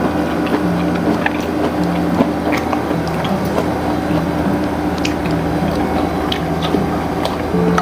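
Biting into and chewing crispy Korean-style fried chicken, with irregular sharp crunches, over a backing tune of held low notes.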